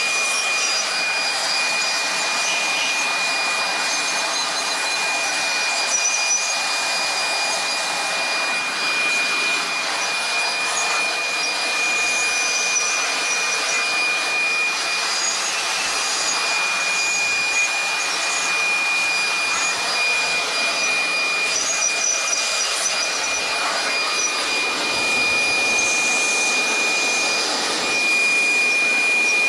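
Electric leaf blower running steadily, a rush of air with a high steady whine, blowing water off a freshly washed engine block to dry it.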